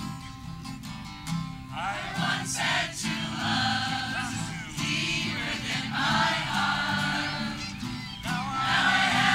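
A large group of men and women singing together, accompanied by two strummed acoustic guitars. The voices come in about two seconds in, after a few strummed chords.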